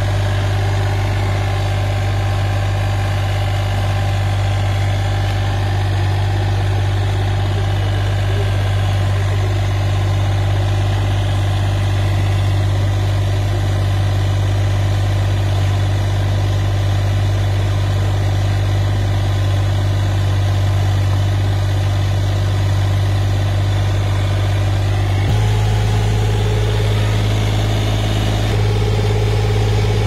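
Mini skid steer's engine running steadily, powering a hydraulic auger drilling into soil. Its note shifts slightly near the end.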